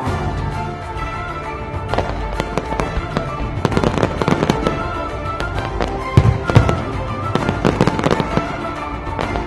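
Aerial firework shells bursting in quick succession with dense crackling, over a pyromusical soundtrack playing along. The loudest bangs come about six seconds in.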